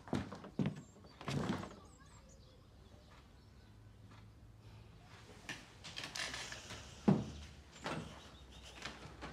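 Quick footsteps in the first second or so, then a scraping of a wooden chair and a sharp thump about seven seconds in as someone gets up from a table, with one more knock a moment later.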